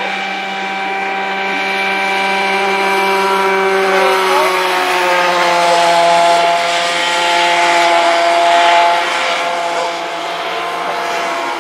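Several small two-stroke racing kart engines (Easykart 50 class) buzzing at high revs as the karts run through a bend. Their pitches dip a little about four seconds in, and the sound grows louder through the middle as the karts approach.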